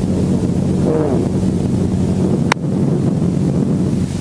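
Helicopter engine and rotor running with a steady low hum, and a single sharp click about two and a half seconds in.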